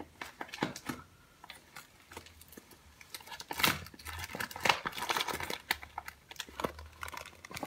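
Packaging being handled and opened by hand: irregular crinkling and crackling with small clicks, sparse at first and busier in the second half, as wax melts are unwrapped.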